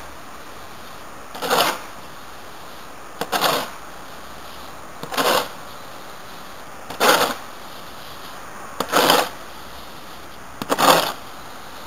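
Shovel scooping and tossing loose, dry mushroom substrate, a gritty scraping rustle six times, about every two seconds.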